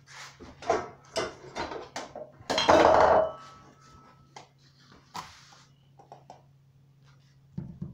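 Kitchen utensils and dishes clattering on a counter: a quick string of clinks and knocks, loudest a clatter with a brief ringing tone after it about three seconds in, then a few scattered taps. A low steady hum underneath.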